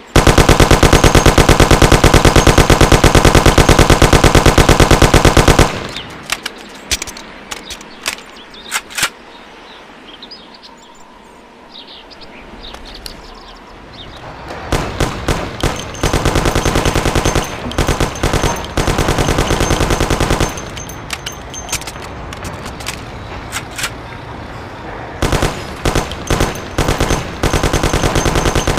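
Thompson M1928 submachine gun firing full-auto: one long continuous burst of about five and a half seconds, then a few single shots and a quieter lull, then a string of shorter bursts and shots through the rest.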